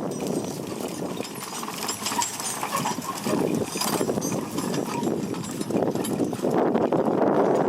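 Work horses walking while pulling a horse-drawn potato digger: hooves clopping amid a continuous clatter of knocks and rattles, getting a little louder near the end.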